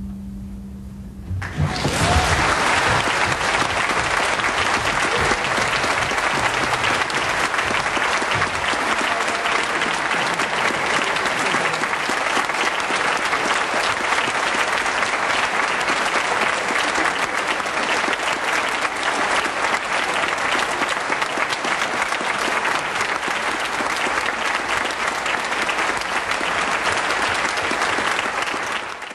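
The last note of the music dies away, then audience applause starts about a second and a half in and goes on steadily until it cuts off suddenly.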